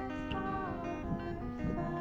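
Background music: an instrumental track with guitar.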